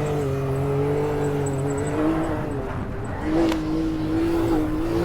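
Off-road vehicle engine running steadily as it crawls the trail, its pitch wavering and dipping a little partway through, with a single sharp knock about three and a half seconds in.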